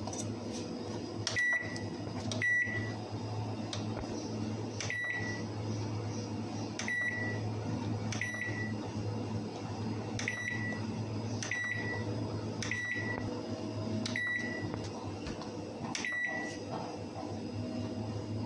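Dawlance microwave oven's touch keypad beeping as its keys are pressed to set the cooking time: about ten short, high beeps, each with a little click, spaced unevenly a second or two apart, over a steady low hum.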